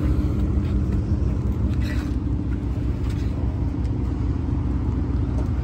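A motor vehicle's engine idling steadily: a low, even hum that holds one pitch, with a few faint clicks.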